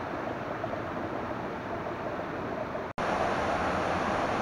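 Steady rush of running stream water. About three seconds in it cuts off abruptly and gives way to a louder steady rush of water pouring over a small stone weir into a pool.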